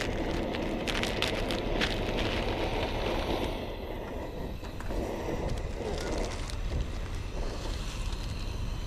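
Wind rushing on the microphone, with the crackle of instant-noodle seasoning packets being torn and handled in the first couple of seconds.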